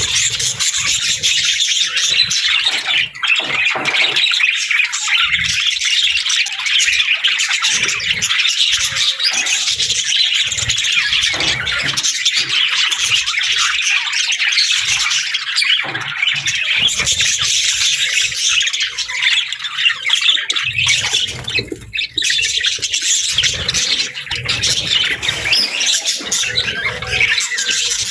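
Many birds squawking and calling at once in a dense, continuous din.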